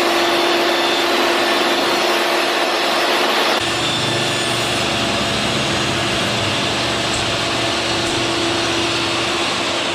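Shop vacuum running steadily with a constant whine, drawing dust from a table saw through its hose. About three and a half seconds in the sound changes and gets fuller and lower.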